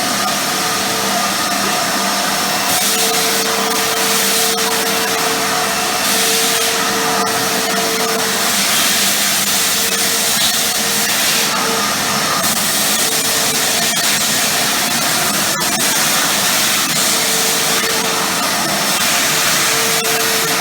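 Titan TTB350VAC wet and dry vacuum cleaner running steadily, its motor whine fading and returning and its rushing air shifting in strength, with a single sharp click about three-quarters of the way through.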